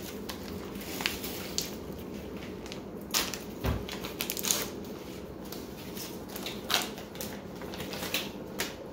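Crinkling and crackling of a foil MRE retort pouch of flour tortillas being handled and torn open, in scattered sharp crackles over a steady low hum.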